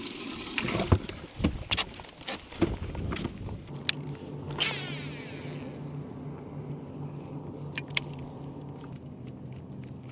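Knocks and clunks of handling around a bass boat's livewell as a landed bass is put away, with a short whirring swish about halfway. From about four seconds in, a small electric motor hums low and steady.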